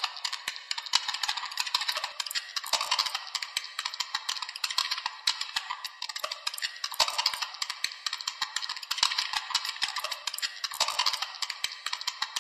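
Dense, irregular clicking and crackling, many small ticks a second, over a faint hiss that swells every few seconds.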